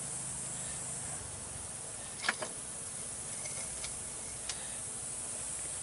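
A few light clinks of copper scrap being handled and dropped into a small crucible, the sharpest about two seconds in, over a steady hiss.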